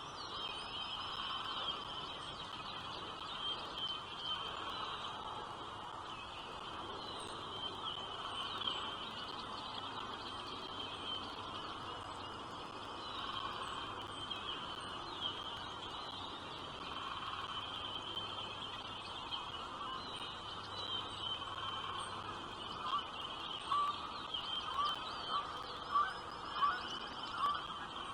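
Birds chirping: a steady chorus of short high chirps, with a run of louder, separate rising chirps about once a second over the last few seconds.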